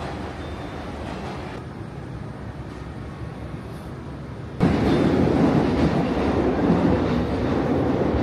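A train passing: a steady rumble at first, then suddenly a much louder, deeper rumble from a little past halfway that holds to the end.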